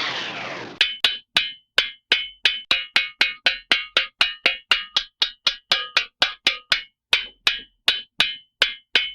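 Hanna-Barbera cartoon sound effect: a long, even run of hollow wood-block knocks, about three or four a second, each with a short ringing tone. It starts just under a second in, as the tail of a swooping effect fades out.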